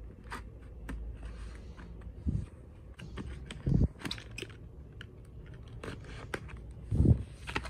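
Small scissors snipping and scraping through the seal on a cardboard box, with scattered light clicks and three dull thumps from the box being handled, the loudest near the end.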